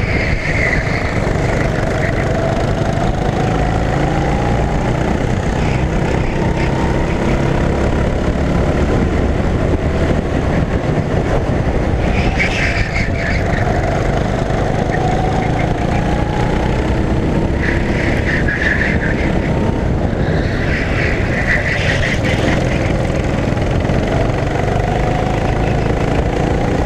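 Rental go-kart engine heard onboard under racing load, its pitch climbing slowly as it accelerates and dropping back into the corners, again and again, with wind rumbling on the microphone.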